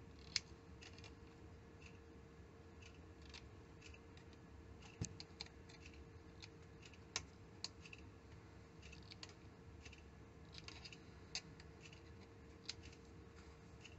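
Faint, scattered clicks from small hand work at a bench vise: a scissors snip at the thread about half a second in, then occasional light ticks of a thin hand tool on the thread wrap, over a faint steady hum.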